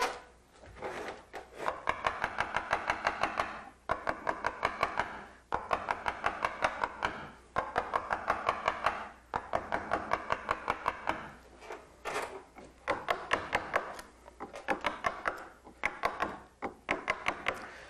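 Carving gouge driven through wood by quick, light mallet taps, about six a second, in runs of one to two seconds with brief pauses between them.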